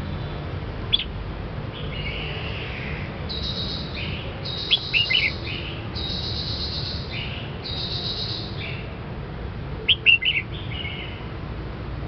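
Red-whiskered bulbul singing: a run of warbling phrases, with short, sharp, loud notes about a second in, around five seconds and again near ten seconds.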